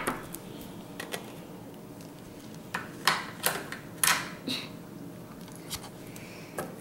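Small plastic toys and a toy plate being handled and set down on a plastic toy kitchen: a string of light, irregular clicks and taps, over a faint steady hum.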